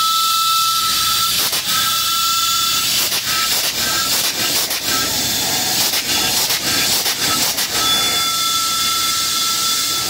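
Steady hiss of steam from the standing steam locomotive Reading 2102, with a thin whistling tone that drops out and returns several times and scattered short clicks.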